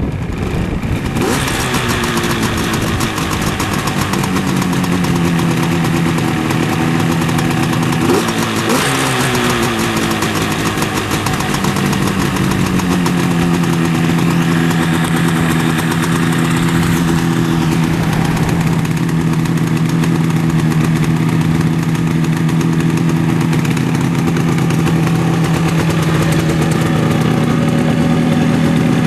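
Freshly rebuilt 1975 Yamaha RD250's air-cooled two-stroke parallel twin running at idle, blipped briefly twice, about a second in and about eight seconds in, then settling to a steady idle.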